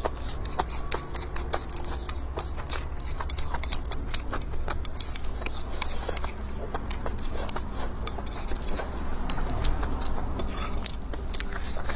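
Chopsticks clicking and scraping against a bowl as rice is shovelled into the mouth, with chewing and lip smacks; many short irregular clicks.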